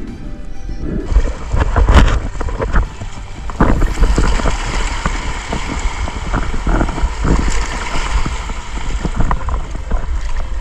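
Shallow seawater splashing and sloshing around a diver wading out over rocks, with wind buffeting the action camera's microphone in a low rumble. The muffled underwater sound gives way about a second in as the camera breaks the surface.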